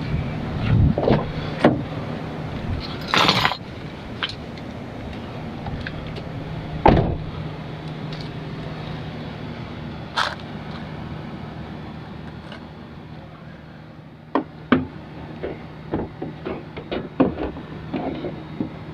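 Clicks, knocks and a scrape of hard plastic parts being handled while a car's front turn-signal light assembly is put back together, scattered and irregular, with a quick run of clicks in the last few seconds, over a steady low hum.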